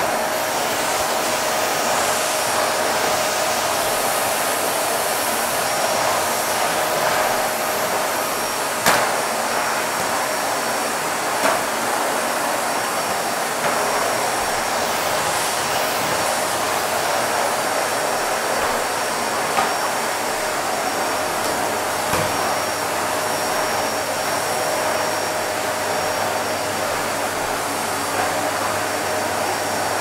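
Vacuum cleaner running steadily: a constant rush of air with a steady whine through it and a few brief faint clicks.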